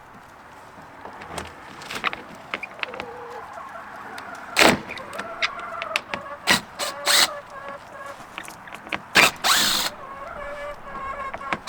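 Sharp knocks and bangs of wood as the old, rotted lid is worked off a wooden chicken coop's roost boxes, louder from about four seconds in, with hens clucking and calling.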